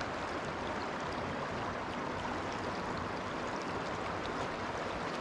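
River current flowing steadily: an even rush of moving water.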